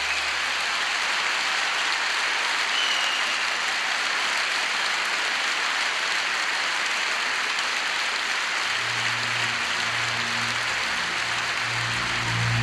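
Live concert audience applauding steadily. About two-thirds of the way through, low sustained instrumental notes of the song's intro begin under the applause.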